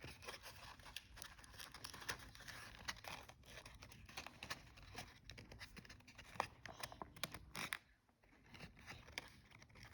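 Faint rustling and light clicking of a folded-paper origami fidget toy being handled and flipped, with a brief pause about eight seconds in.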